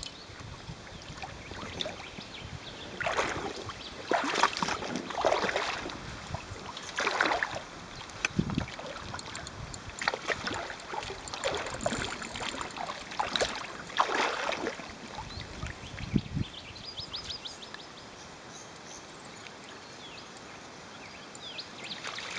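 Hooked carp splashing and thrashing at the surface as it is played in to the landing net, in irregular bursts of splashing through the first two-thirds, then quieter lapping water.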